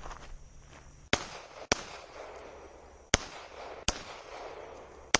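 Single pistol shots from a Sig Sauer 1911 MAX in .40 S&W: four sharp reports at irregular intervals, with a fifth right at the end.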